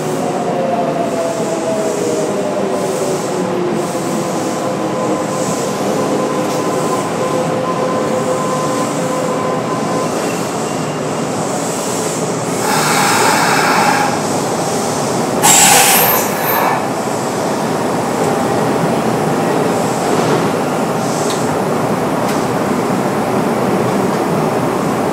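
Kintetsu 9820 series electric train running, heard inside the car: a steady rumble of wheels and running gear with the whine of its Mitsubishi IGBT-VVVF traction drive, whose tones fall in pitch over the first few seconds and then hold steady. Two brief loud rushing noises come about 13 and 16 seconds in.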